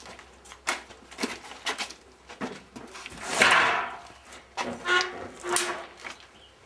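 Footsteps and handling noises: a string of short knocks and clicks as wooden racks and a cardboard box are touched, with one louder scraping rustle about three and a half seconds in and a couple of brief squeaks around five seconds.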